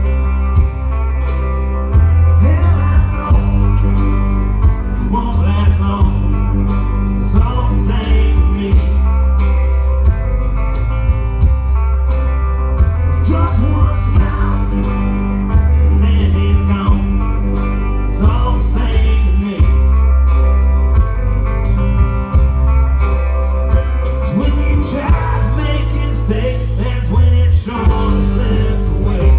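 Live rock band playing through a loud PA: electric guitars, bass and drums on a steady beat, with a man singing over them.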